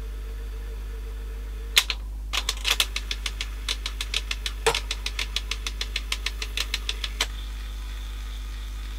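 Cassette deck tape mechanism, over a steady mains hum: a sharp click, then a rapid ticking of about five or six clicks a second for about five seconds. This is its plastic gears grating, a noisy gear fault that the repairer puts down to wear and too much play.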